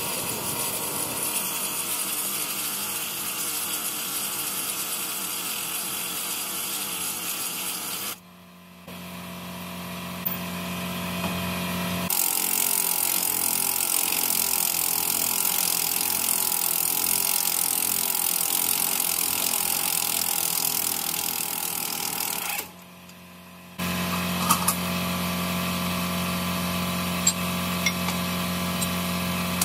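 Pneumatic air tool working on a semi truck lift axle's steering knuckle during a king pin replacement. It runs in several stretches broken by two short drops in level, and the last stretch is a steady hum with scattered light clicks.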